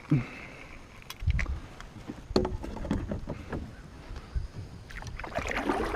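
Scattered knocks, clicks and low thuds of gear being handled in a kayak as a fishing rod is put away, with bumps against the hull.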